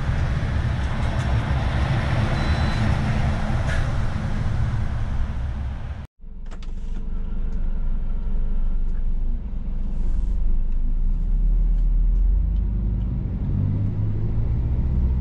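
Heavy truck noise heard from inside a truck cab: a dense rumble with hiss as other trucks pass close by. After a sharp cut about six seconds in comes the low, steady drone of the Scania S500's diesel engine as the truck moves off, growing louder from about ten seconds in.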